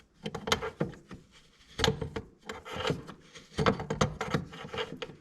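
A hand tool scraping and clicking against metal in irregular bursts, as a stuck bolt on a jet ski is worked at to loosen it.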